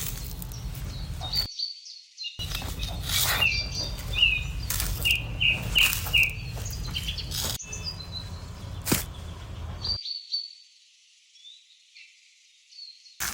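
Small birds chirping, with a quick run of short chirps in the middle, over a low rumble and a few sharp taps.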